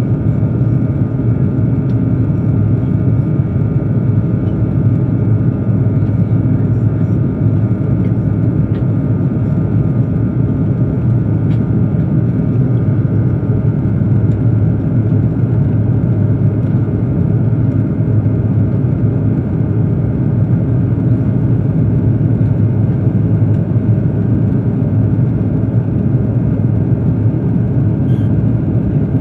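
Steady low rumble of jet engines and airflow heard inside the cabin of an Airbus A330-200, with a faint steady hum above it.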